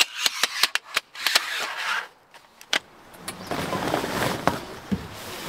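Rooftop tent being set up: a quick run of sharp clicks and taps in the first second and a half, then tent fabric rustling and scraping over the last couple of seconds.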